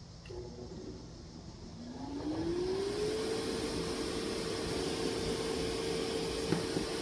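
Hand-crank siren spinning up with a blower feeding it air: after about two seconds a single tone rises for about a second and a half, then holds steady over the blower's steady rushing.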